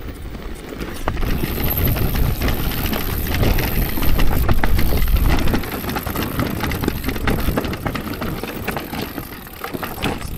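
Orbea Rise e-mountain bike rolling down a loose, rocky trail: tyres crunching over stones and the bike rattling and knocking over bumps, over a continuous low rumble. It is loudest from about four to five and a half seconds in.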